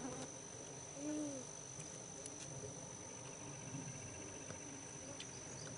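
Insects singing in a faint, steady high-pitched drone. A short low hum rises and falls about a second in.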